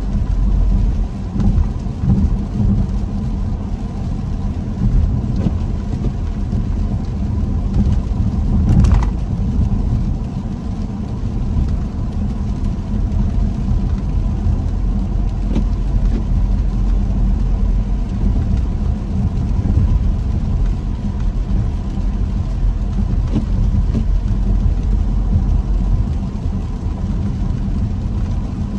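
Car driving on a wet road: a steady low rumble of engine and tyres with the hiss of water under the wheels, and a brief louder noise about nine seconds in.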